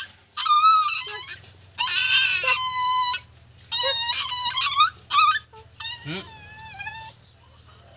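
A puppy crying out in a string of high-pitched, wavering yelps and whines, five or six cries of up to a second each, in distress at being bathed. The cries stop about a second before the end.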